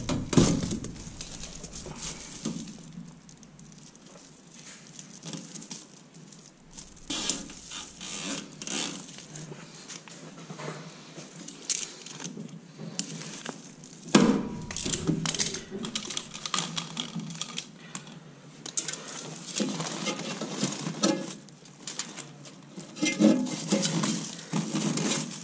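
Crinkling and rustling of a foil-faced insulated flexible ventilation duct being handled and worked around a metal spigot by hand, with irregular clicks and scrapes that come and go, louder near the middle and toward the end.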